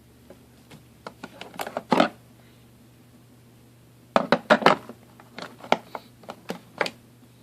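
A run of clicks and knocks from hard plastic parts being handled: a short cluster, a pause, then a longer cluster of sharper knocks.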